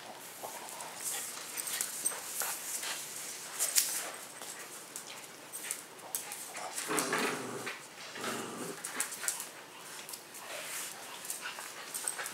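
Dogs playing with a person: scuffling and many small clicks and knocks, with two short dog vocal sounds about seven and eight seconds in.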